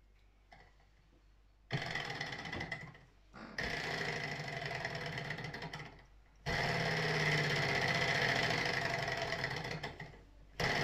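Small twin-cylinder Stirling engine running with a fast mechanical clatter and whir. It starts suddenly about two seconds in and breaks off briefly three times as it falters and is flicked back into motion. The owner puts this down to too little heat from its sunflower-oil burners.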